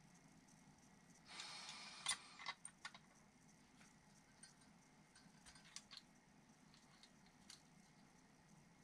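Near silence broken by small clicks and taps of a coil spring being seated in a spring rate gauge. The loudest is a sharp click about two seconds in, right after a short hiss, followed by a few quicker clicks and then faint scattered ticks.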